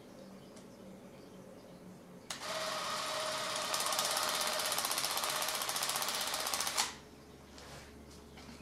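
Canon DS8 movie camera's film transport mechanism running, a fast, even mechanical rattle. It starts about two seconds in, gets louder a second later, runs for about four seconds and cuts off suddenly. A single click comes near the end.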